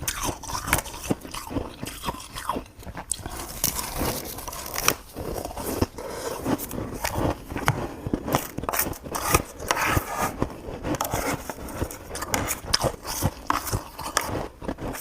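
Close, irregular crunching and crackling clicks, like something being bitten and chewed.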